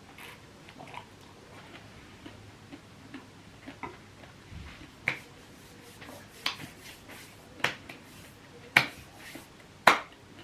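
Eating sounds at a meal: a series of sharp clicks, about one a second in the second half and getting louder, over faint smaller ticks.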